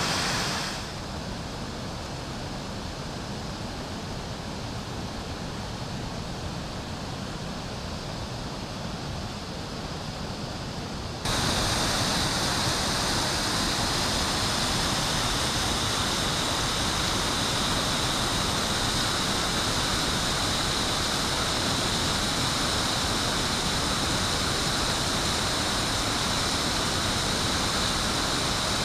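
Steady rushing of a waterfall. About a third of the way in it cuts abruptly to a louder, brighter rush.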